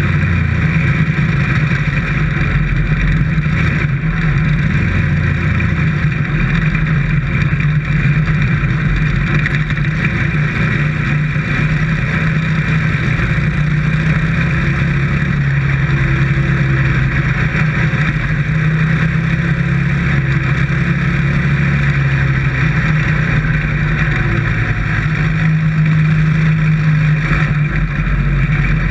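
Dirt-track race car's engine running loud, heard from inside the cockpit, its pitch rising and falling a little as the car is driven around the track.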